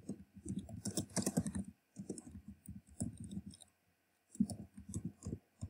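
Typing on a computer keyboard: quick runs of key clicks with short pauses between them, one near the middle and one near the end.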